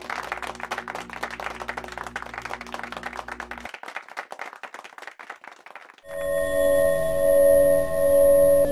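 Audience applause that dies away over the first few seconds. About six seconds in, a loud sustained ringing tone of several steady pitches starts: the opening of the closing-title music.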